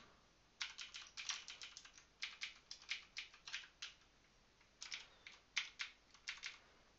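Computer keyboard typing in quick runs of keystrokes, with a pause of about a second between the two runs.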